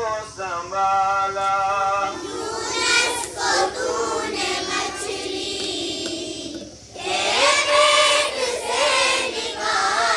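Schoolchildren singing a Hindi prayer song together in unison. The first two seconds sound like a single clear line; then many voices fill in, with a short break about seven seconds in.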